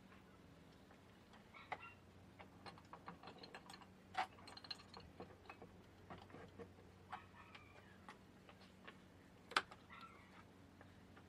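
Faint, irregular light clicks and taps over a steady low hum, with two sharper clicks about four seconds in and near the end.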